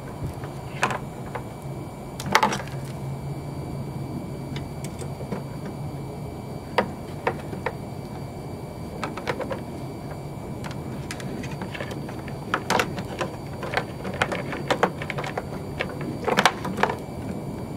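Irregular clicks and knocks of parts being handled, a few louder ones near the start, the middle and the end, over a steady low hum.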